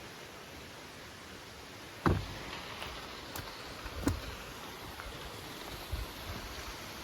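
Steady rushing of a waterfall and stream, with a sharp thump about two seconds in, another about four seconds in, and a few fainter knocks after.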